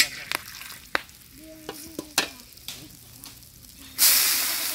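A metal ladle stirs whole spices and dried red chillies frying in a little oil in a large iron kadai, with a few sharp clicks. About four seconds in, sliced onions hit the hot oil and a loud sizzle bursts up and carries on.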